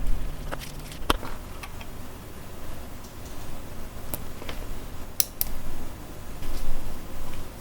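Scattered sharp clicks and taps of small metal parts and tools being handled during camera repair work, two of them close together about five seconds in, over a steady low hum.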